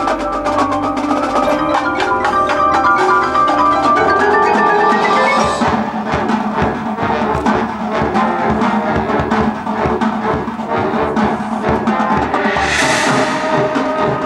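Marching band percussion: the mallet section (marimbas, xylophone and bells) plays a melodic line that climbs in a quick run over the first few seconds. The drums then take over with rapid, dense strokes, and a cymbal swells up near the end.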